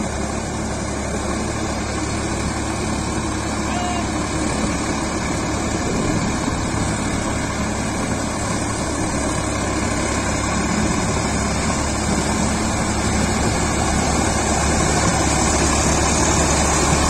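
Sonalika RX 47 4WD tractor's 50 hp diesel engine running steadily under load as it pulls a rotary tiller through wet paddy mud. It grows gradually louder toward the end.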